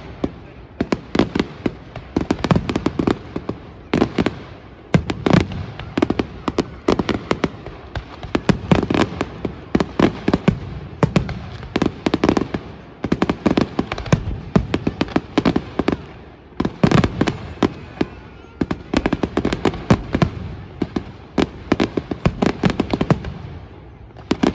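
Fireworks display: a continuous barrage of aerial shell bangs, several a second and often in quick clusters, from large display fireworks.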